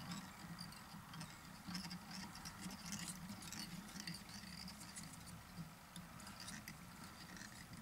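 Faint scratches and small clicks from hands working at a fly-tying vise with thread and deer hair, over a low steady hum.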